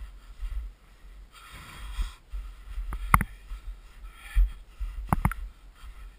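Footsteps in snow: a rasping crunch, then sharp crunches about three seconds in and twice just after five seconds, over a low rumble on the microphone.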